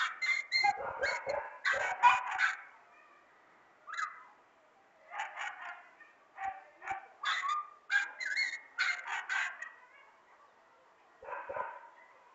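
Dogs barking at a marmoset in bursts of several quick barks, with short pauses between the bursts and one last brief burst near the end.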